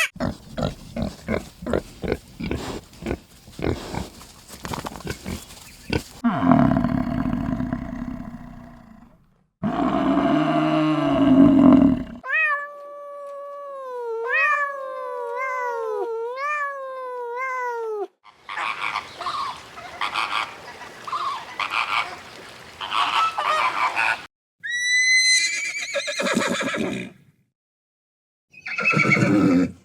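Farm animals calling, one after another in short clips that cut abruptly several times: a run of fast repeated calls, then low loud calls, then a series of pitched calls that dip and rise, and a few falling calls near the end.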